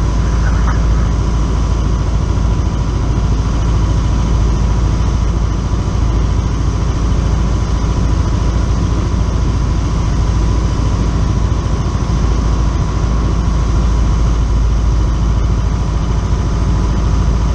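Steady drone of a single-engine piston airplane's engine and propeller, heard from inside the cockpit in flight.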